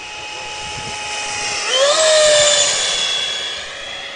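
Electric ducted fan of an RC Starfire jet (Vasafan 90 driven by a Typhoon 700-68 1500 kV motor) whining in flight. The whine jumps up in pitch about a second and a half in, is loudest about two seconds in, then slides down in pitch and fades as the jet passes.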